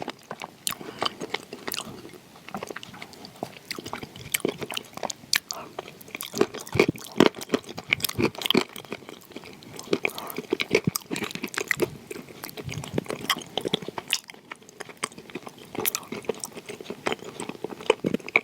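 Close-miked chewing and biting of buttercream mixed with soaked pieces of blue Uzbek edible clay: a steady run of irregular wet crunches and mouth clicks.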